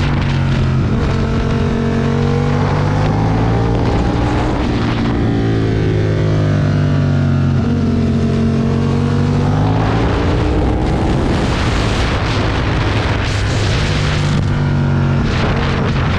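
Aprilia Tuono motorcycle engine at track speed, with wind rush on the microphone. The engine note drops as the bike slows for a corner, then rises again as it accelerates out, with shifts near the end.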